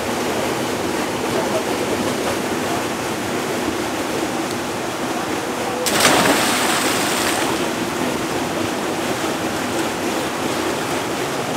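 Steady rush of flowing river water, broken about six seconds in by a loud splash that lasts about a second and a half as a person jumps into a deep rock-walled pool.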